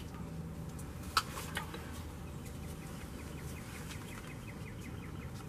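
A sharp click about a second in, then a fast, even trill of short high notes from a bird calling for a couple of seconds.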